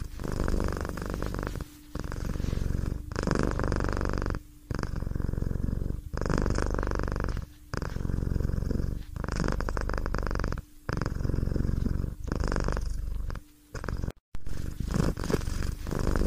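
Domestic cat purring close up, in long even phrases about a second and a half each, with a brief break at each breath.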